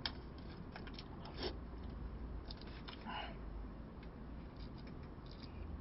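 Eating omurice with a plastic spoon from a takeout container: faint chewing and a few short clicks of the spoon against the container, over a steady low hum.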